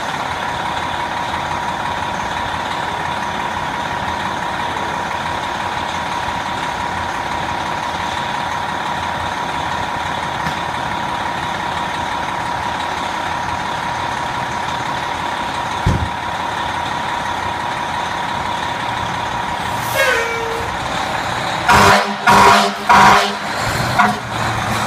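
Fire engine's diesel engine idling steadily, with a steady high tone over it. About 20 s in a short falling tone sounds, then near the end several loud horn blasts as the engine pulls out.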